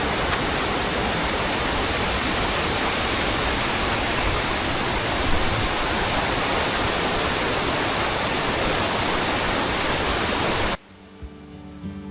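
Steady rush of a waterfall running full after heavy overnight rain, cutting off abruptly about eleven seconds in, where acoustic guitar music begins.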